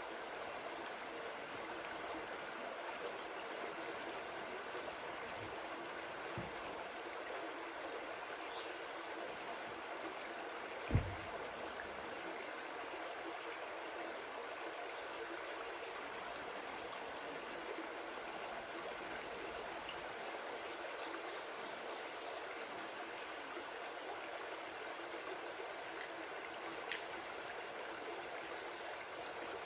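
Shallow rocky creek babbling steadily over stones. A brief low thump about eleven seconds in stands out as the loudest moment.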